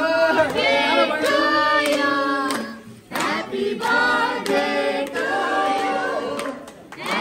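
A group of people singing a birthday song together in two long phrases, with a short break about three seconds in, and some hand clapping.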